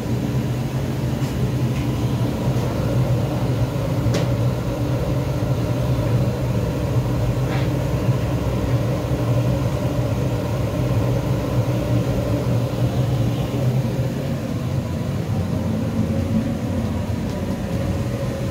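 A steady low mechanical rumble with a faint steady tone in it, unchanging throughout, and a couple of faint clicks.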